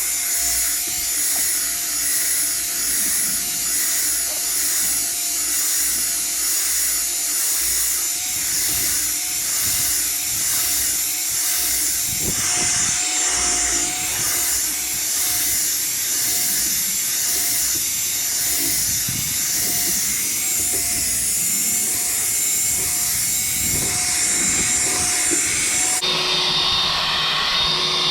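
Electric drill spinning a foam buffing pad with polishing compound on a plastic headlight lens, a steady motor whine. Near the end the whine drops to a lower pitch as the drill slows.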